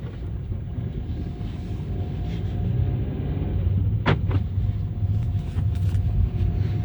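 Volkswagen-group 1.4 TSI turbocharged four-cylinder petrol engine running on a cold start with a low, steady rumble, and two sharp clicks about four seconds in. The owner reports a rattle that comes only while the oil is cold and that a new timing-chain set has not cured.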